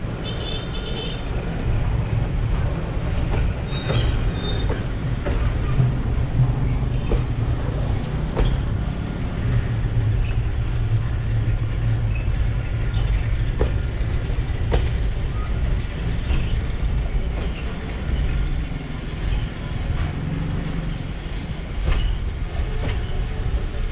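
Container freight train's wagons rolling past close by: a steady low rumble with scattered wheel clicks, and brief high wheel squeals near the start and again about four seconds in.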